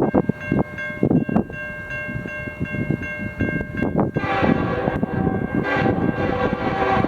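Nathan K5HL five-chime locomotive air horn sounding. A thinner steady chord with a gusty low rumble under it at first, then the full chord comes in louder about four seconds in and holds.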